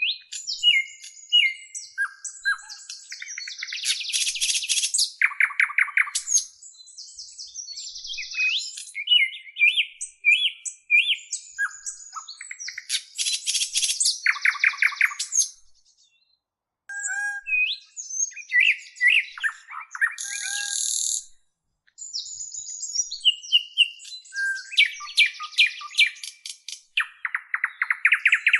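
Lovebirds chirping and chattering: quick chirps, trills and short whistled glides mixed with harsh buzzy calls, with two brief pauses past the middle.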